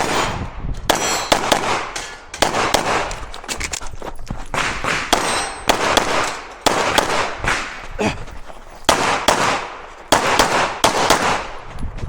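Glock 17 9mm pistol fired in quick strings of shots, with brief pauses between the strings, the shots echoing; metallic clangs and pings mixed in.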